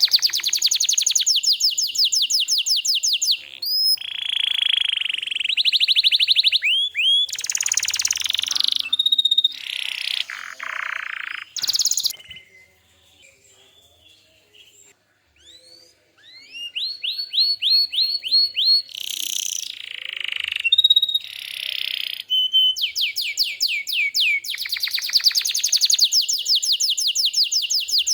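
Canary singing: fast trills of rapidly repeated high notes and chirps. The song stops for about three seconds midway, then resumes with more rolling trills.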